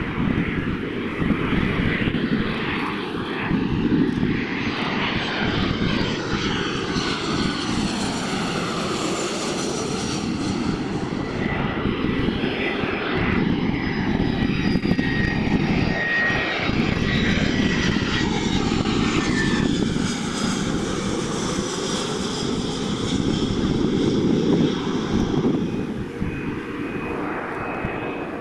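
Airliner passing close, its engines giving a loud, steady rush with whining tones that slide in pitch. The sound eases off near the end.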